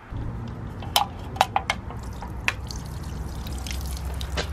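Liquid pouring onto asphalt pavement into a puddle, with a few separate drops splashing, over a low steady rumble.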